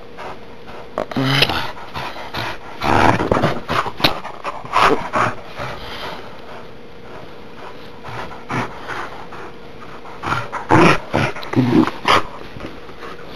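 A dog growling in play, in irregular short bursts.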